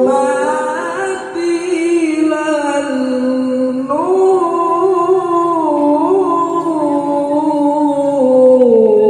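A young male qori reciting the Quran in the melodic tilawah style into a handheld microphone: long held, ornamented notes, stepping up in pitch about four seconds in and sliding down near the end.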